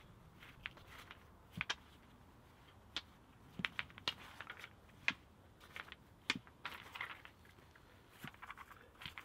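Rounded pebbles clicking against one another as they are picked from a pile and set down one at a time on packed earth: about a dozen short, sharp clicks at irregular intervals.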